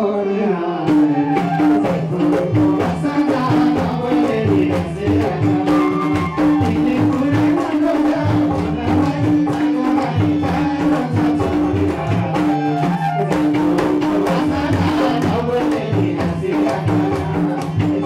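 Live Nepali dohori folk music: a band with madal and other hand drums keeping a steady rhythm under a melody line that holds and repeats one note.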